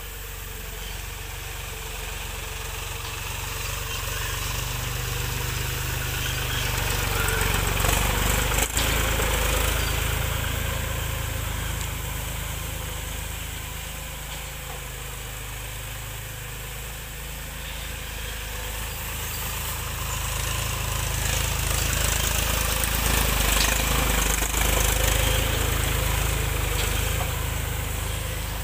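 Mahindra 275 tractor's three-cylinder diesel engine running as the tractor drives over heaped paddy straw to thresh it, growing louder twice as it comes close and fading as it moves away.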